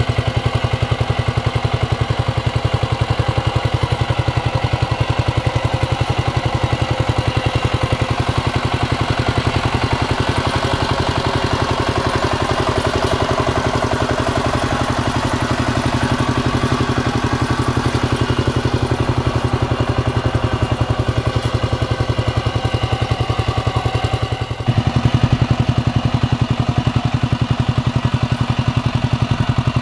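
Kamco power tiller's single-cylinder diesel engine running steadily with an even, rapid chugging rhythm while it drives cage wheels through flooded paddy mud. The sound gets louder near the end.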